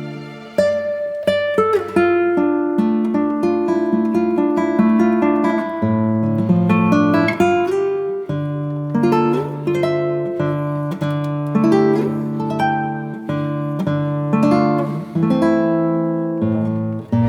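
Instrumental background music led by plucked guitar: a held chord fades out, then about half a second in a melody of picked notes begins over sustained low notes.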